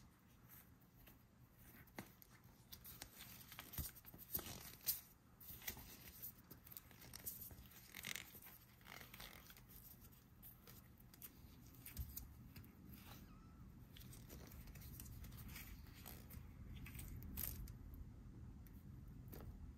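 Faint squishing, creaking and crackling of a soft stretchy rubber Bingo figure being squeezed and stretched in the hands, with scattered small clicks and skin-on-rubber rubbing.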